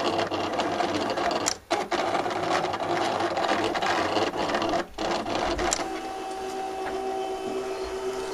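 Contour cutter running as its blade carriage and paper roller cut around a printed graphic: a buzzing motor chatter with two brief breaks, about a second and a half and five seconds in, settling into a steadier whine from about six seconds.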